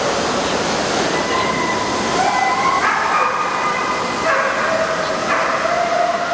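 A dog howling in long held notes that jump up and down in pitch every second or so, starting about a second in, over the steady din of a crowded exhibition hall.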